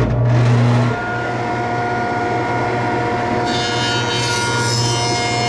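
Jointer with a helical cutterhead switched on: the motor starts with a loud first second, then settles into a steady hum. About three and a half seconds in, a wide board is pushed across the cutterhead edge-first, and a high hiss of cutting joins the hum.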